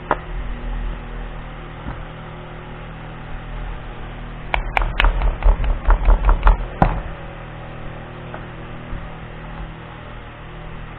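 Sharp clicks and knocks of pistol parts being handled during disassembly: one click at the start, then a quick run of about a dozen about halfway through, over a steady low hum.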